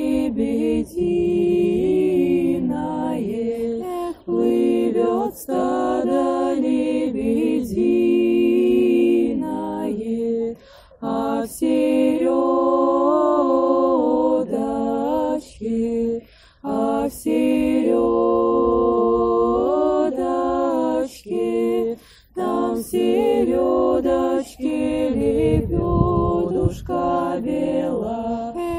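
Women's vocal ensemble singing a Russian folk song a cappella in close harmony, several voices moving together in long phrases broken by short breaths.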